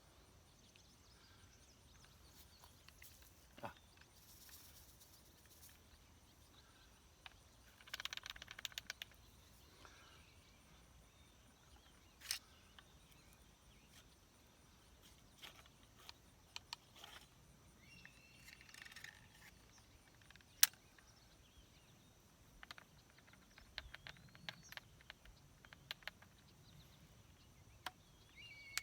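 Quiet handling noises of a flintlock pistol being reloaded: scattered sharp clicks and knocks, with a short rattle about eight seconds in. Faint bird chirps come and go over outdoor ambience.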